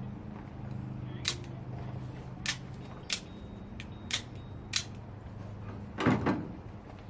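Out-the-front knife clicking sharply as it is handled, five crisp clicks spread over about four seconds, then a louder clatter near the end.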